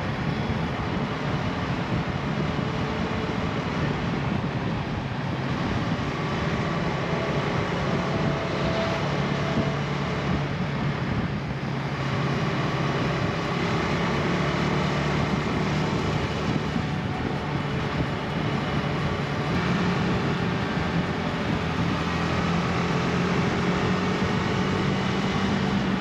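Motorcycle engine running steadily at cruising speed, heard from the rider's own bike, under a constant rush of wind and road noise. The engine note rises a little near the end.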